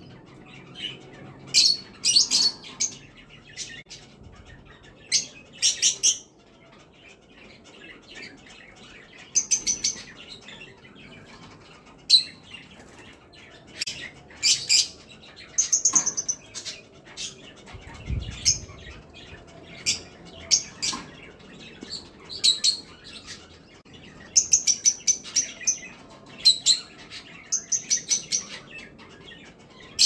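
Caged kakariki (red-fronted parakeets) chattering: short bursts of rapid, high chirps that come in quick clusters every second or two.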